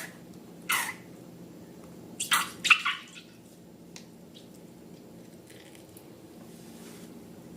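Slime being handled, giving a few short wet squelches in the first three seconds, two of them close together just before the three-second mark. A faint steady low hum runs underneath.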